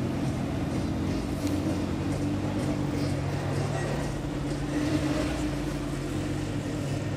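A car engine idling steadily, its low hum holding one pitch, with people talking in the background.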